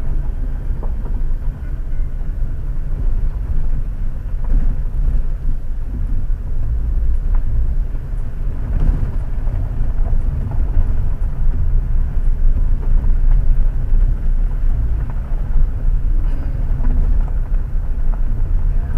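A 2018 Jeep Compass Trailhawk driving slowly up a gravel road, heard inside the cabin: a steady low rumble of road and engine noise with scattered small ticks and knocks from the tyres on the gravel.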